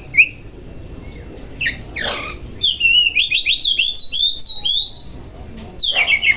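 Oriental magpie-robin (kacer) singing: quick runs of short falling whistled notes, a dense varied phrase of rising and falling whistles in the middle, and a short harsh rasp about two seconds in.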